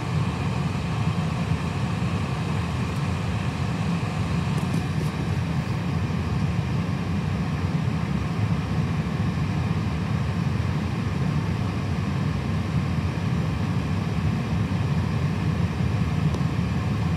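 Steady low drone inside an Airbus A320 cockpit on the ground, its engines at idle while holding short of the runway, with a faint steady whine above it.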